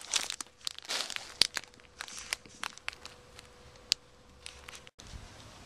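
Plastic wrapping crinkling and crackling in irregular bursts as a horse head mask is handled inside it. The crackling stops abruptly near the end.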